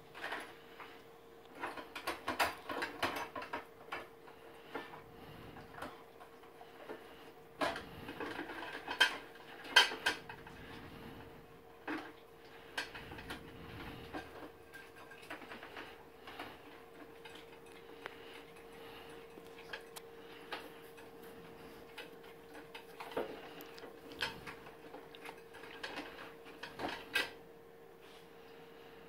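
Dishes, pots and cutlery clinking and clattering in a kitchen sink as a dog rummages through them, in scattered bursts with the loudest clank about ten seconds in. A faint steady hum runs underneath.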